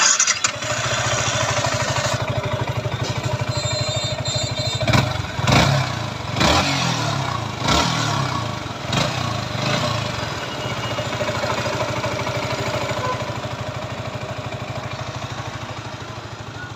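Yamaha R15 V3's 155 cc single-cylinder four-stroke engine idling, blipped up several times in quick succession between about five and nine seconds in, then settling back to a steady idle. This is an engine-sound check after its cam, rocker arms and timing chain were replaced.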